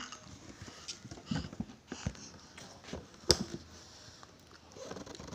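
Light scattered taps and knocks from a baby's hands on a wooden table top, with one sharp knock about three seconds in.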